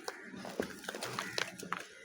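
Dry multani mitti (Fuller's earth clay) chunks crumbling under pressure: a quick run of crisp cracks and crunches that dies away near the end.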